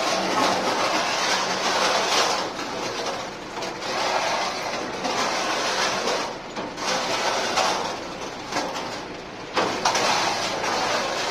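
Self-loading pan concrete mixer running: a loud gritty rushing noise that swells and eases every couple of seconds, over a steady engine hum.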